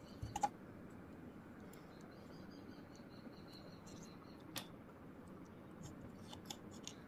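Small, sharp clicks of wire leads being pushed into the contacts of a plastic solderless breadboard: a couple about half a second in, one about four and a half seconds in and a few smaller ones near the end. Faint high chirping runs behind.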